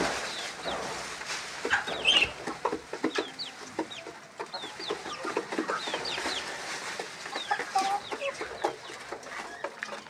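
Chickens clucking, with chicks peeping in many short high chirps that repeat all through.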